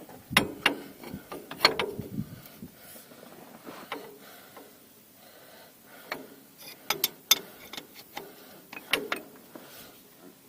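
Hand wrenches working on a steel hydraulic line's fittings under a backhoe: sharp metallic clicks and clinks in a few short clusters, with quiet shuffling between them.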